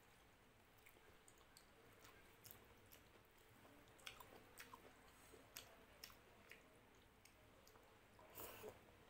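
Faint wet eating sounds: scattered small clicks and squishes of rice and dal being mixed by hand and chewed, with a louder burst of mouth sounds near the end as a handful goes into the mouth.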